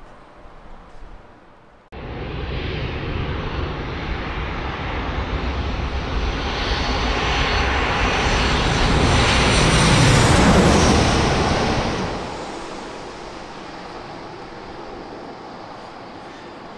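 Twin-engine jet airliner on final approach passing low overhead. Engine noise starts abruptly about two seconds in and swells to its loudest about ten seconds in, with a whine that drops in pitch as the plane passes. It then falls off suddenly to quieter, steadier engine noise.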